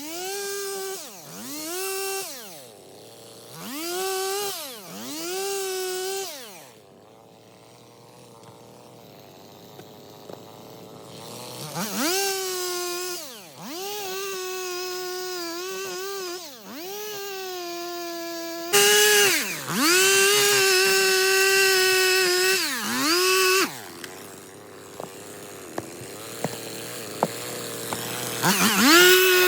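Stihl MS 250 two-stroke chainsaw revving up and down in repeated short bursts, dropping back to idle between them. It is held at high revs for about five seconds, falls to idle, and revs up again near the end.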